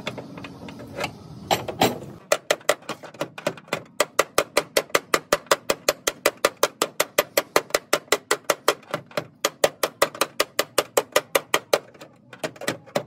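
Body hammer tapping rapidly and steadily on the sheet metal of a Toyota Fielder's rear quarter panel, knocking out dents, about five blows a second. The tapping breaks off briefly near the end, then starts again.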